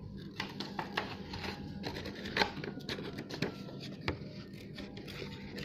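Small scissors cutting paper: a run of short, irregular snips and clicks with paper rustle.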